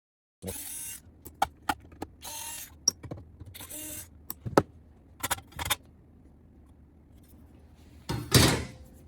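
Handling noises from work on an opened key cutting machine: a run of sharp clicks and knocks mixed with short scraping or rattling stretches, then a quieter spell and a louder scrape or clatter about eight seconds in.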